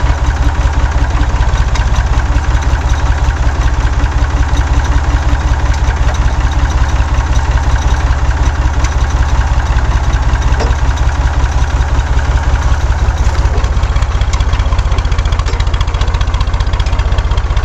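Small farm tractor's engine running steadily at close range, a low, even chugging that neither revs up nor dies away.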